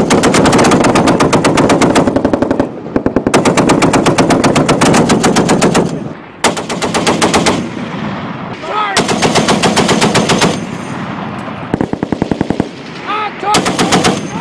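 M2 Browning .50-calibre heavy machine gun firing in loud bursts of rapid shots. There are about five bursts: the first two run about three seconds each, and the later ones are shorter, with brief pauses between.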